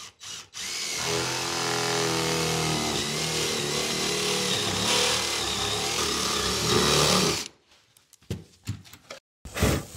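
DeWalt 18V cordless drill with a 20 mm spade bit boring through two laminate flooring boards, running steadily for about six seconds with its motor note sagging slightly as the bit bites in, then stopping. Faint rubbing follows near the end.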